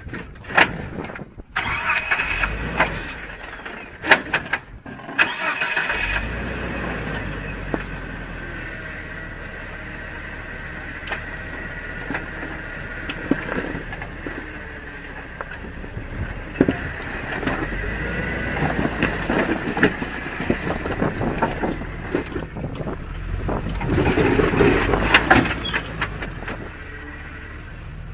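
Off-road truck engine running at low speed and revving as the truck crawls over rock, with scattered knocks. The engine grows louder for a stretch near the end.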